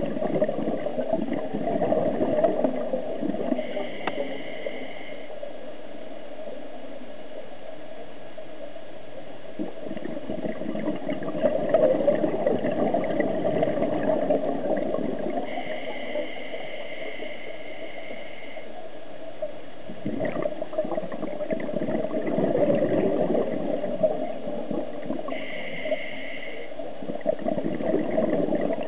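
Scuba diver breathing through a regulator, heard underwater: long bubbling exhalations every several seconds, with a thin two-note whistle on the inhalations in between.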